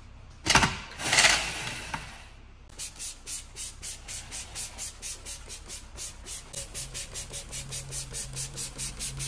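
Two short loud bursts, then a hand trigger spray bottle sprayed onto an alloy wheel in quick, even strokes, about three to four spritzes a second.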